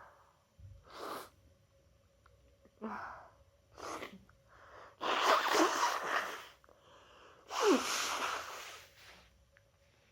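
A person with a head cold sneezing, the sneezes brought on by chhinkni sneezing snuff: short sniffs and breaths in the first few seconds, then two louder sneezes about five and seven and a half seconds in, the second with a falling cry.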